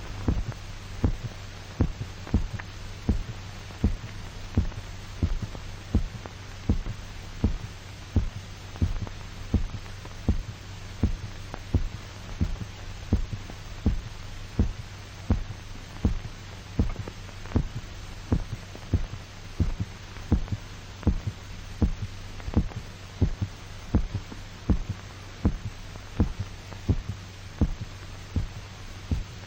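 Heartbeat, regular single thumps about once a second over a steady low hum: the dog's heart still beating while its blood is drained off through the carotid artery.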